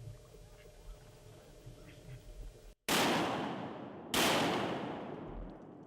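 Two shotgun shots just over a second apart, each a sharp blast that rings out and fades slowly, fired at a duck.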